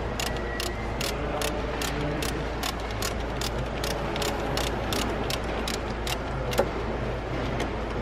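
Regular mechanical clicking, about two and a half clicks a second, which then stops with one sharper knock.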